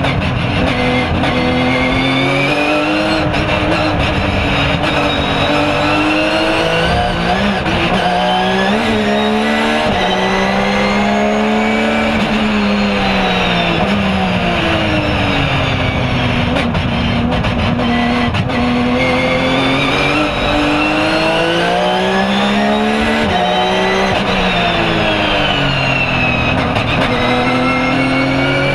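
Porsche 997 GT3 R race car's flat-six engine heard from inside the cockpit, its note climbing and falling again and again as the car accelerates and slows on the wet circuit, over a steady hiss of road and tyre noise.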